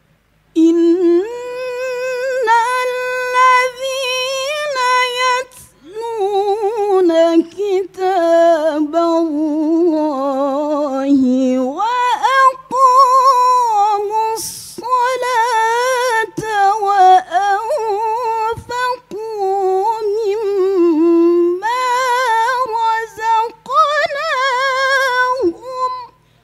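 A woman reciting the Qur'an in the melodic, ornamented tilawah (mujawwad) style, drawing out long sung phrases broken by short breaths. About twelve seconds in, her voice climbs to a higher pitch.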